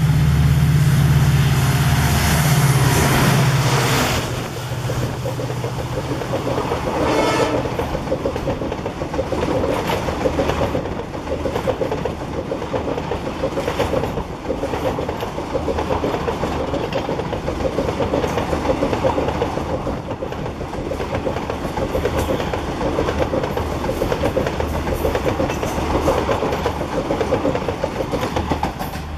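EMD WDP4D diesel locomotive's two-stroke V16 engine running loud as it passes at speed, fading after about four seconds. A long rake of passenger coaches then rolls by with a steady clickety-clack of wheels over rail joints. A short horn blast comes about seven seconds in.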